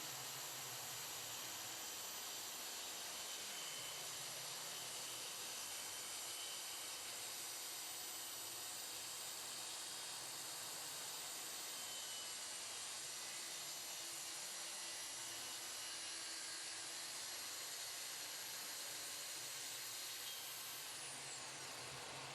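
DEWALT track saw running steadily through plywood, a high-pitched steady whine and hiss.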